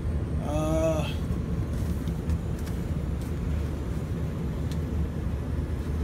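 Indoor blower of an older Arcoaire gas furnace running steadily, a constant low rumble of moving air, after a call for cooling from the thermostat. A short pitched sound is heard briefly about half a second in.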